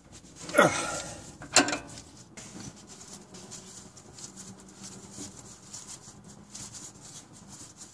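Two loud metal clanks from a flare nut wrench on the power steering line fitting, about a second apart, the first dropping in pitch and the second ringing. A shop towel then rustles as it wipes the fitting.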